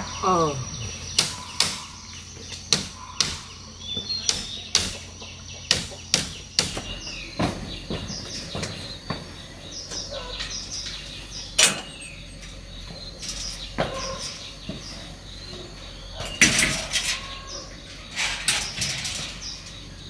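Footsteps at about two a second, then scattered knocks and a louder flurry of clatter near the end as a chicken-wire cage door is opened and handled, with a few short bird chirps.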